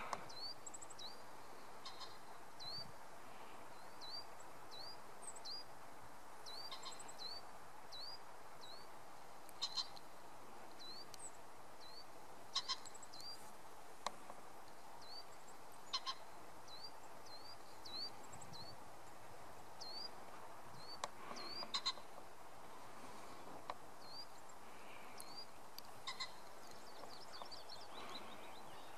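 Birdsong: a small bird repeats a short, high, upward-flicking note about twice a second in runs, over a faint steady background hiss. A few brief sharp clicks stand out louder now and then.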